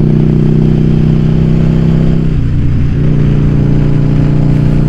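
Yamaha Virago XV750's air-cooled V-twin engine running steadily under way, heard from the rider's helmet camera. Its note shifts briefly about two seconds in, then settles again.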